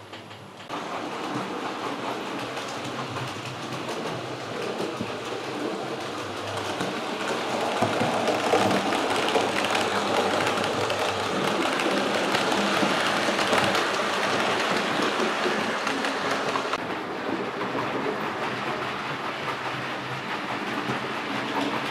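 Model train running along the layout's track, its wheels clicking over the rail joints. It starts suddenly about a second in, is loudest in the middle as it passes nearest, and grows duller near the end.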